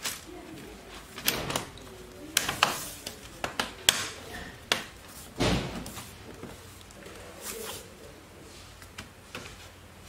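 Laptop bottom cover being pressed and snapped into place by hand: a series of sharp clicks and knocks, with a duller thump about five and a half seconds in, then quieter handling.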